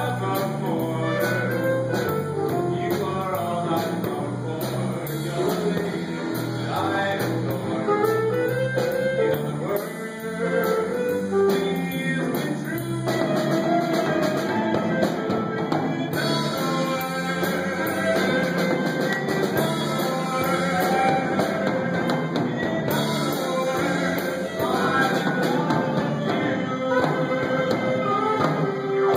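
Live jazz band playing a jazz standard.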